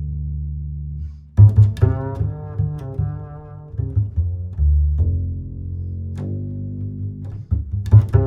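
Background music led by low string notes, some plucked and some held.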